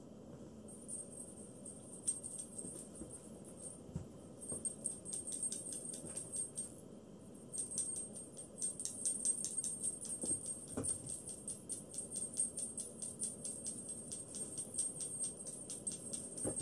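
Small bells jingling in quick, rapid ticks, stopping briefly a little before the middle and then going on more densely.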